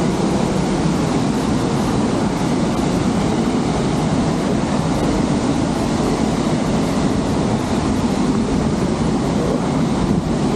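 Aira Force waterfall in spate after days of rain: a loud, steady rush of falling water that does not let up.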